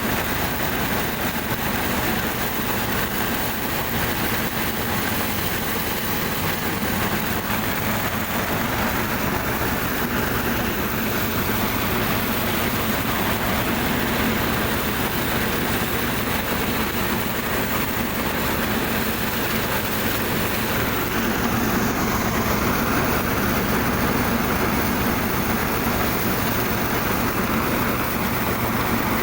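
Small engine driving a farm machine, running steadily at constant speed: a low, even hum under a dense mechanical noise.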